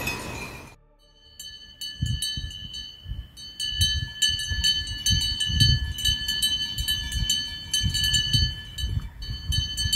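Several cowbells clanking irregularly, each strike leaving a lingering ring at a few different pitches, with a low irregular rumble underneath. The bells start about a second in, after a cut from a noisy hiss.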